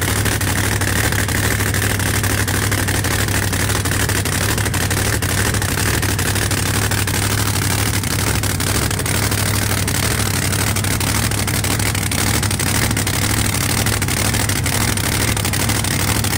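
Drag car's engine idling loudly and steadily at the start line, not revving.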